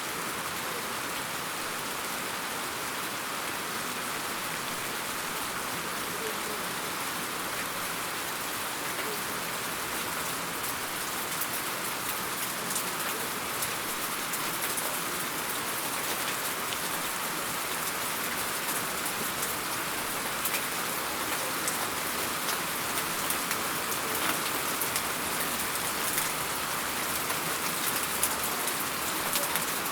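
Steady rain falling, a dense even hiss of drops on a surface. From about halfway, sharper individual drop taps grow louder and more frequent.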